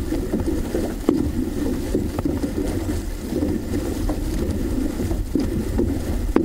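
Water rushing and splashing along the hull of an OC-6 outrigger canoe being paddled, with wind rumbling on the microphone. A sharp splash or knock comes every second or so as the paddles strike the water.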